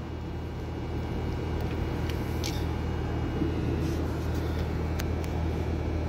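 Steady low machine hum, with a few faint light clicks about two seconds in and again near five seconds as a steel hydraulic elbow fitting is spun by hand out of the cylinder's threaded port.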